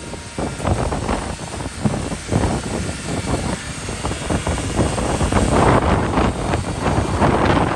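Wind buffeting the microphone, gusting irregularly with a low rumble.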